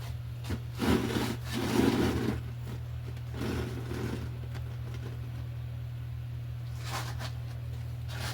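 Rubbing and scraping noises in three bursts during the first four seconds, with a couple of short clicks later, over a steady low hum.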